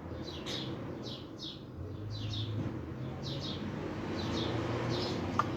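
A small bird chirping repeatedly: short, high, falling chirps about two a second.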